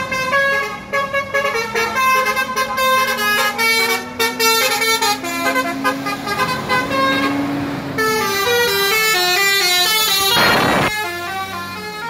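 Basuri 'telolet' musical bus horns playing fast multi-note tunes, the pitch stepping up and down in quick runs, with a faint low drone underneath. Near the end there is a short, loud rushing hiss.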